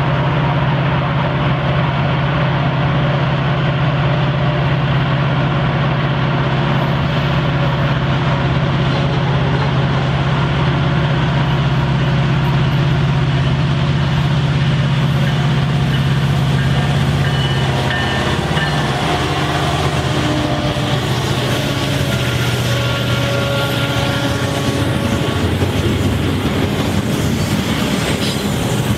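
Freight diesel locomotives approaching with a loud, steady engine drone that drops in pitch as they pass, about two-thirds of the way in. Then comes the rumble and clatter of double-stacked container well cars rolling by on the rails.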